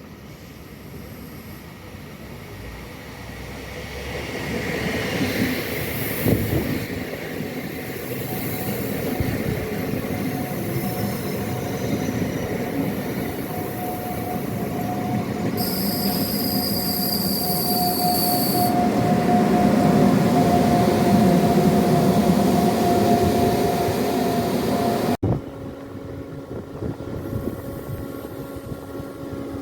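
ÖBB City Shuttle train with a class 1144 electric locomotive running on rails, its noise growing steadily louder. A high wheel squeal lasts about three seconds midway. Near the end the sound cuts off abruptly and gives way to a steadier hum made of several tones.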